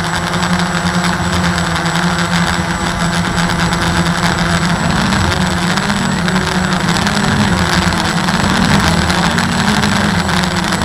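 Walkera QR X350 quadcopter's electric motors and propellers buzzing steadily as it holds position in GPS hover hold. From about halfway the pitch wavers slightly up and down as the motors make small corrections.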